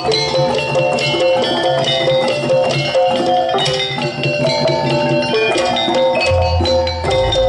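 Javanese campursari music in jaranan style: an ensemble of pitched percussion notes over drums, with a deep bass coming in near the end.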